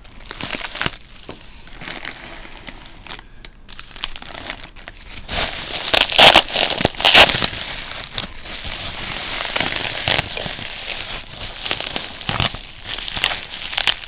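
Bubble wrap and plastic packaging being pushed about and crumpled by hand, crinkling and crackling throughout, loudest about six to seven seconds in.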